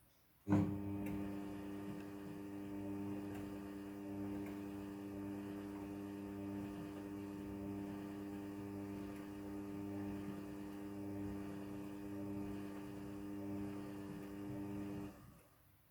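Midea front-loading washing machine running with a steady electric hum. It comes on with a click about half a second in and cuts off suddenly near the end.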